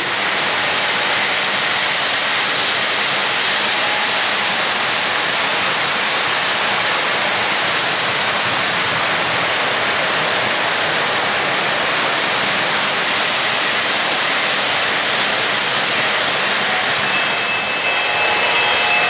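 O-gauge model freight train running on three-rail track: a steady rushing roll of wheels and motors with no break or rhythm.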